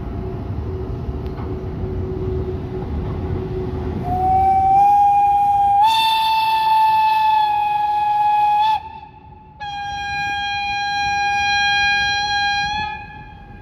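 A railway locomotive whistle gives two long, steady blasts: the first lasts about five seconds and rises a little in pitch as it starts, and after a brief gap the second lasts about three seconds. Before it, the low rumble of the electric locomotive E 77 10 rolling past.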